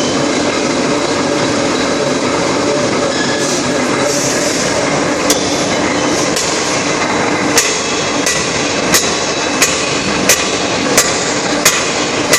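Forging-shop machinery running with a steady loud din. From about halfway through, a forging hammer strikes at an even pace, about three blows every two seconds, after a couple of single blows just before.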